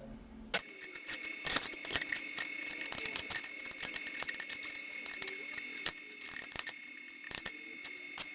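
TIG welding arc on angle stock, struck about half a second in. It runs as a steady high whine with irregular crackling ticks.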